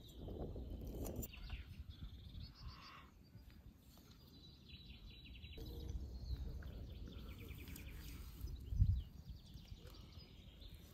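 A knife carving a roast goose, cutting through the crisp skin and meat, with low handling knocks and one louder low thump about nine seconds in. Songbirds chirp and trill in the background.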